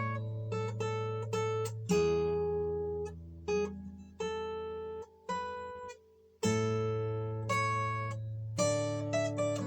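Yamaha steel-string acoustic guitar played freely, chords struck and left to ring with single notes picked over them. The sound dies away almost to nothing about five to six seconds in, then a fresh chord rings out.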